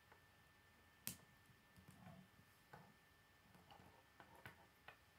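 Faint, scattered clicks of plastic K'nex rods and connectors being handled and snapped together, the sharpest click about a second in.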